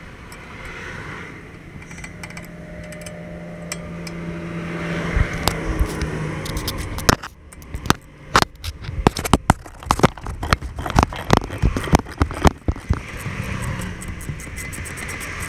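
A steady engine hum grows louder and drops off about seven seconds in. Then a wrench working a bolt on a car's front control arm bushing makes a run of quick, irregular metallic clicks for about five seconds.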